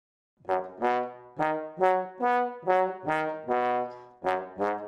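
Bass trombone playing a phrase of about ten separate notes, starting about half a second in. Each note is struck with a firm attack and then fades away.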